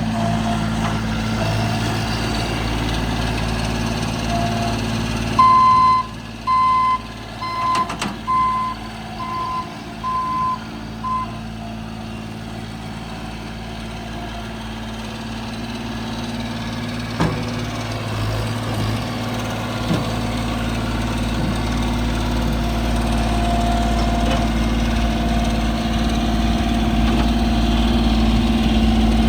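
2019 Bobcat S70 skid steer's diesel engine running, with its backup alarm giving a run of about seven evenly spaced beeps a few seconds in as the machine reverses. The engine then speeds up and grows louder toward the end, with a couple of short knocks along the way.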